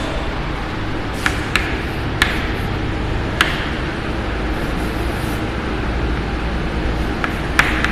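Steady low background hum and hiss, broken by a few sharp clicks.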